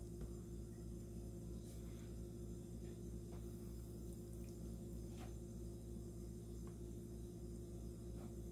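Steady low hum with a few faint, soft rustles as a hand tosses chicken wings in a bowl of flour.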